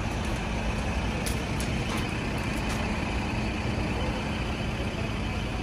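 Steady hum of idling vehicle engines and traffic, with a few faint clicks between about one and a half and two seconds in.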